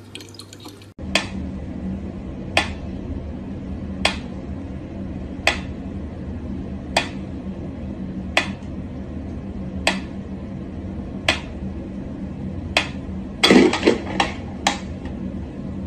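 Mechanical pyramid metronome ticking slowly and evenly, about one sharp tick every second and a half, over a low steady hum. Near the end a short burst of louder noise breaks in.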